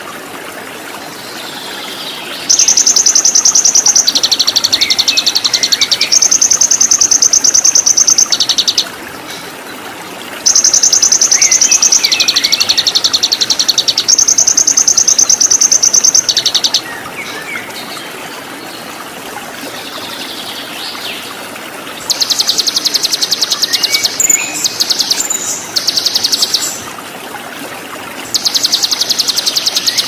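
Recorded songbird song over running water: a loud, high, rapid buzzing trill held for several seconds at a time, four times, with pauses between in which the water and a few softer chirps are heard.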